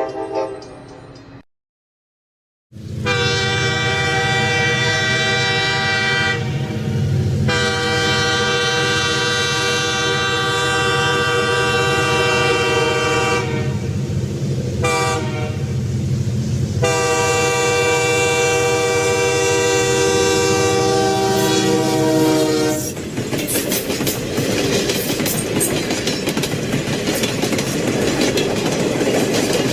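A train horn plays a chord of several notes over a low rumble, in two long blasts, a short one and a long one: the pattern of the grade-crossing signal. The horn stops, and the train runs past with its wheels clattering over the rail joints. A short horn note cuts off about a second in, just before the sequence.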